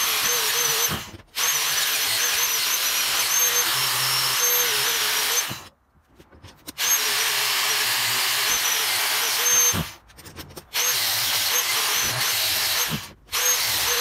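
Electric angle grinder running under load against a cast-iron vise body, a dense grinding noise over a steady motor whine. It cuts off abruptly for under a second four times.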